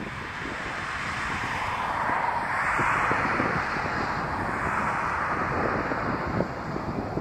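Distant jet engine noise from an Emirates Airbus A380, a broad rushing whine that swells about two seconds in and then holds, with wind buffeting the microphone.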